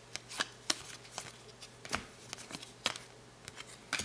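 A hand-held stack of NBA Hoops basketball trading cards being flipped through one card at a time. Each card gives a short, sharp snap, about two a second at uneven intervals.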